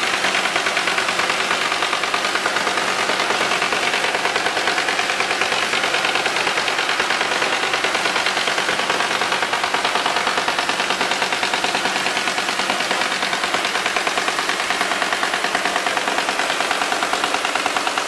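Adler AD-210 plastic granulator running under load, its rotor knives chopping LDPE film liners: a loud, rapid, steady clatter over a steady machine hum.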